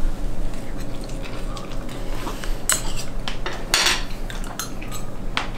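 Metal forks clinking and scraping against a plate: a scattering of sharp clinks, most of them in the second half.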